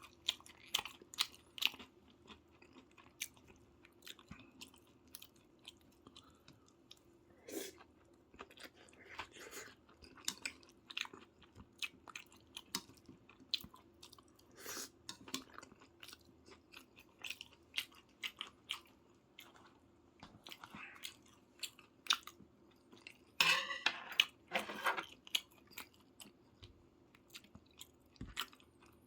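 Close-miked chewing and wet mouth sounds of someone eating soy-braised chicken, irregular smacks and clicks, with a louder spell about three quarters of the way through.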